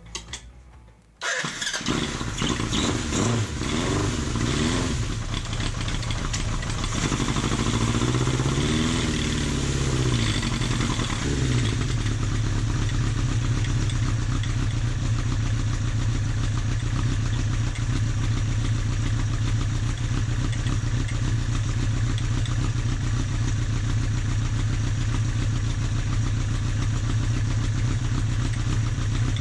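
Honda CB750F air-cooled inline-four motorcycle engine fed by freshly cleaned Keihin FCR carburetors. It starts about a second in, is revved up and down slowly twice, then settles into a steady idle.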